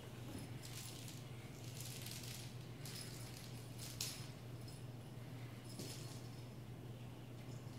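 A small bell jingling in short bursts as a cat bats a toy about on a wooden floor, with one sharp click about four seconds in, over a steady low hum.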